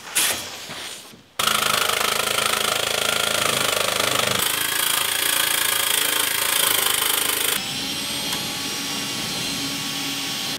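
Power tool cutting sheet steel: a steady, harsh noise that starts suddenly about a second and a half in, its tone shifting twice later on.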